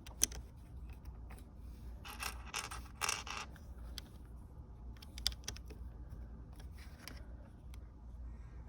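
Plastic Lego pieces being handled and sorted: a few sharp clicks and small rattles, with short scratchy rustles in between.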